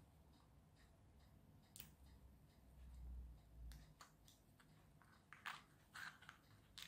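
Faint, scattered clicks and taps of small pre-cut plastic kit pieces being handled and pressed out of their sheet, with a dull low bump about three seconds in.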